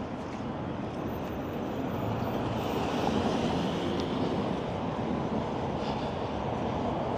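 Steady road traffic noise: vehicles driving past on a busy city street, swelling slightly in the first few seconds.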